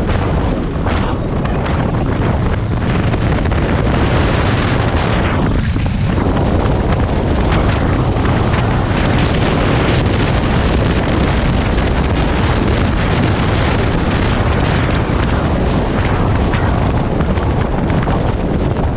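Wind rushing over the microphone of a camera on a moving motorcycle, mixed with the bike's engine and road noise: a loud, steady rush with a brief lull about six seconds in.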